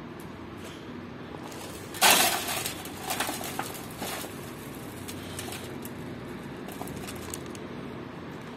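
Dry mixed grain feed poured from a sack into a metal pan. A sudden rush of rattling grain about two seconds in, tailing off in a few smaller spills over the next two seconds.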